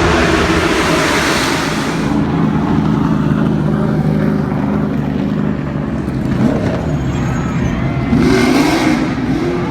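NASCAR stock cars' V8 engines running at speed on the track, a steady drone. There is a louder rush in the first two seconds, and near the end the engine notes slide up and down in pitch as cars pass.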